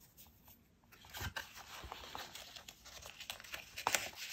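String being unwound from a button-and-string closure on a paper envelope and the flap lifted open: soft rustling of paper and card with small scratchy clicks, starting about a second in and a little louder near the end.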